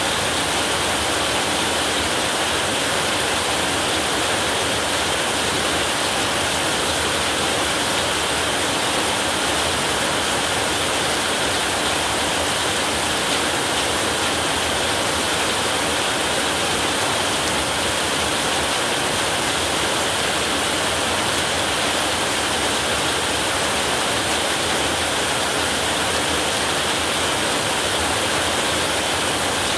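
Heavy rain falling steadily on a roof, an unbroken, even hiss with no thunder.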